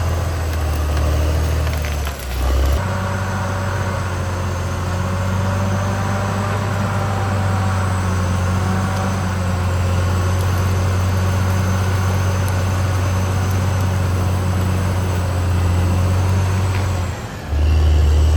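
Caterpillar D6R XL bulldozer's diesel engine running steadily with a deep drone. The sound breaks off briefly about two seconds in and again near the end.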